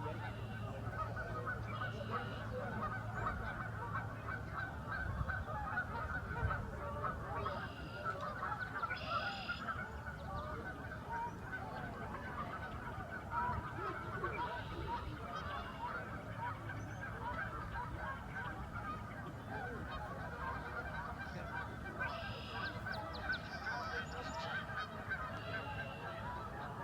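A large flock of wild geese calling: a continuous din of many overlapping honks, with single nearer, higher calls standing out every few seconds.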